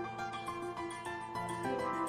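Instrumental background music with quick, evenly paced notes.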